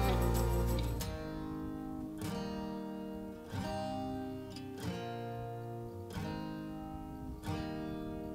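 Background music: slow strummed acoustic guitar chords, a new chord struck about every second and a quarter and left to ring.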